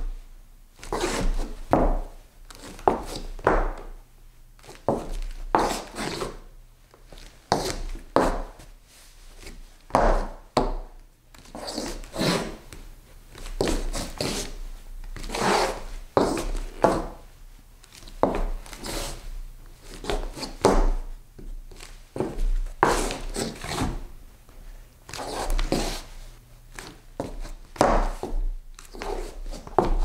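Foley footsteps scuffing and turning around on a wooden floor: short rubbing scrapes mixed with light thunks, repeated at an uneven pace about once or twice a second.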